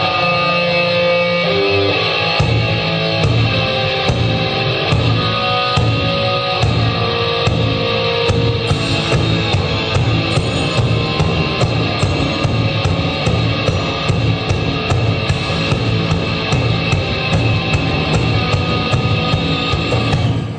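Instrumental intro of a heavy rock song: electric guitar with a drum kit coming in about two seconds in and keeping a steady beat, about two strikes a second.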